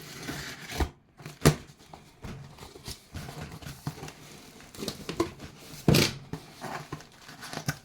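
Shipping package being opened by hand: packing material crinkling and tearing, with a few sharp snaps and knocks, the loudest about one and a half and six seconds in.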